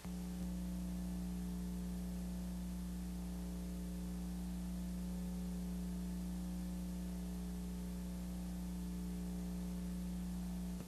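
Steady electrical hum with a row of overtones over faint hiss. It comes on suddenly and cuts off near the end.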